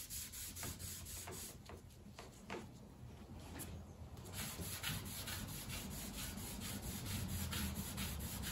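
A finish being rubbed over a pine beadboard board with quick, repeated back-and-forth strokes, quieter for a couple of seconds and then steady.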